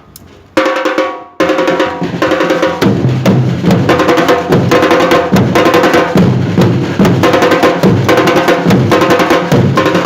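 Brazilian popular percussion group playing drums together, rehearsing a rhythm pattern just taught. A single stroke about half a second in, then the full groove comes in a second later: fast, even strokes over regular deep bass-drum beats.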